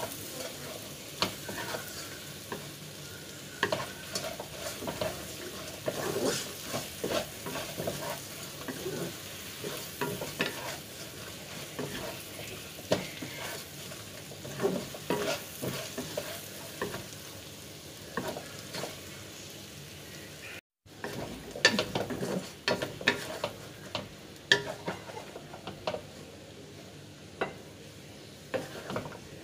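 Wooden spatula stirring buttered garlic prawns in a stainless steel wok: a steady frying sizzle with frequent knocks and scrapes of the spatula against the pan. The sound drops out for an instant about two-thirds of the way through.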